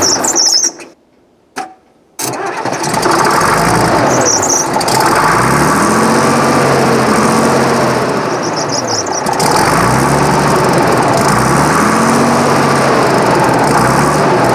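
Case 1150 bulldozer's six-cylinder Case diesel engine firing up and running on starting fluid sprayed into the intake, its speed surging up and then falling back twice. The sound drops out for about a second near the start.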